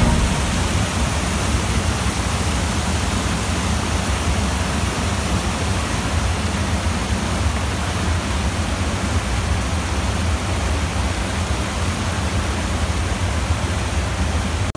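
Water cascading over the steps of a stone river weir (anicut), a steady, unbroken rush of falling and churning water.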